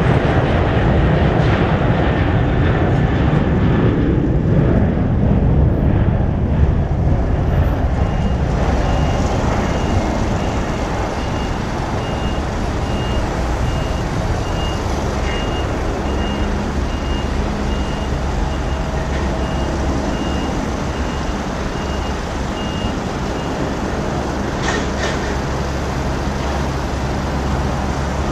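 Boeing 737-800's twin CFM56-7B turbofan engines at takeoff thrust: a loud, steady jet roar as the airliner rolls and lifts off, easing a little as it climbs away. A repeated high beep sounds about once a second through the middle stretch.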